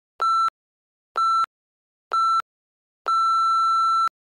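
Workout interval timer beeping out the last seconds of an exercise: three short beeps about a second apart, then one long beep of about a second marking the end of the work interval.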